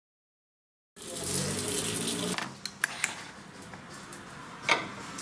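Kitchen noise starts about a second in, then a few sharp clinks of utensils against pots and dishes.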